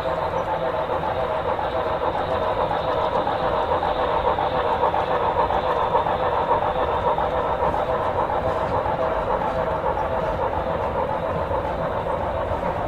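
Steam train running, from an added steam-locomotive sound-effects track: a steady rolling rumble and clatter with no breaks.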